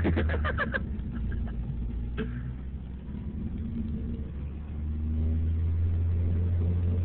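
Car engine running, heard from inside the cabin as a steady low hum. It eases off in the middle and grows louder again about five seconds in. A short run of rapid sharp pulses sounds right at the start.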